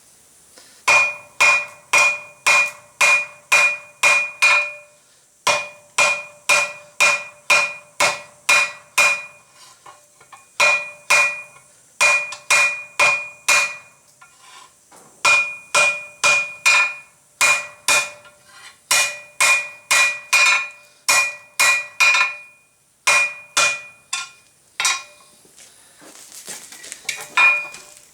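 Hand hammer striking hot flat bar on an anvil, tapering and spreading it, in runs of about three blows a second with short pauses between runs. Each blow rings with a clear metallic tone.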